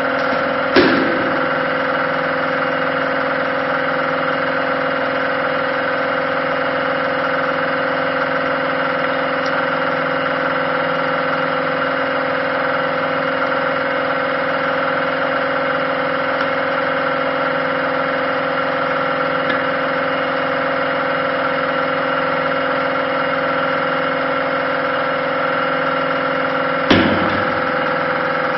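Hydraulic power unit of a HYDRO-TEC HP 1000 concrete splitting press running steadily, pressurising the splitting cylinder in a drilled concrete slab. Two sharp cracks cut through it, one about a second in and one near the end.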